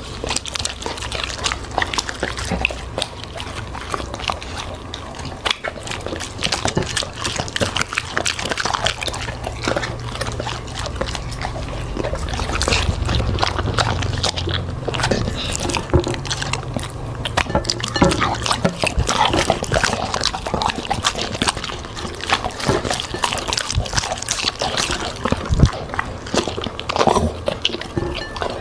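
A dog chewing and crunching food, with wet smacking and many quick, irregular crunches.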